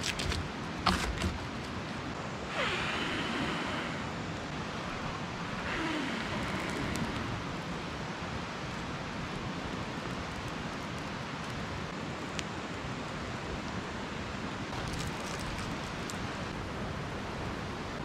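Charred campfire logs clunking and knocking as they are moved on the coals. Then come two breathy rushes of about a second each as the pine-needle kindling is brought to flame, over a steady background hiss.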